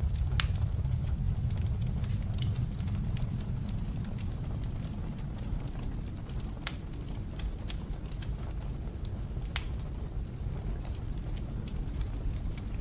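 Fireplace crackling, with scattered sharp pops, over the steady low rumble of blizzard wind.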